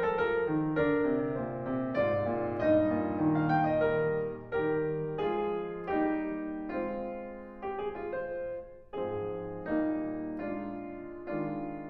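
Slow background piano music, single notes and chords struck about twice a second and left to ring.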